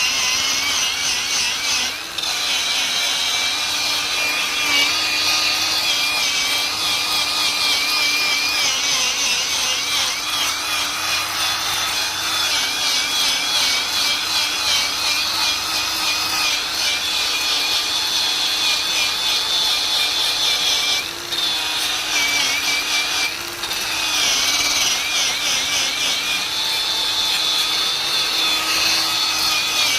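A power tool spinning a wire brush or abrasive cleaning wheel against metal: a steady motor hum under a harsh scratching hiss as the surface is cleaned for welding. The sound dips briefly about two seconds in and twice past the middle.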